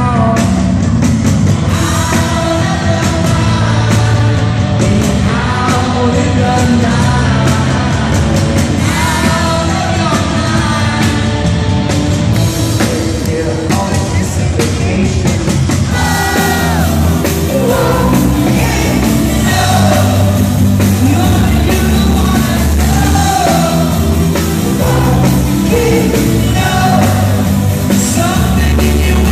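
A rock band playing live in an arena: electric guitar, bass guitar and drum kit, with a male lead singer singing over them.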